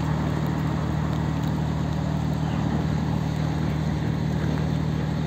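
Marine diesel engines running with a steady low hum, over an even background hiss.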